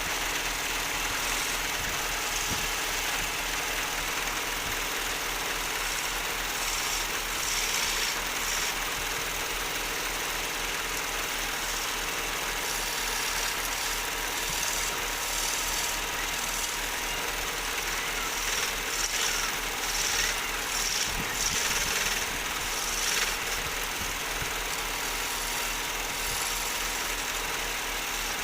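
Wood lathe running steadily, with a turning tool cutting the spinning wood in repeated short scraping bursts, most of them in the middle of the stretch.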